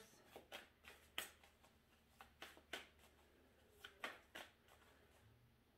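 Tarot cards being shuffled by hand, faintly: soft, irregular card clicks and flicks.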